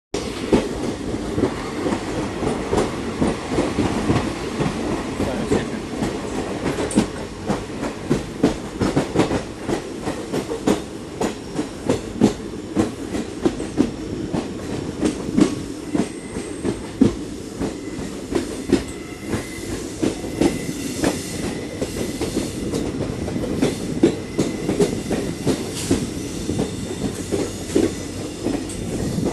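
Train rolling through a station at steady speed, its wheels clacking over the rail joints in a continuous run of clicks over a low rumble. A faint high tone comes in for a few seconds past the middle.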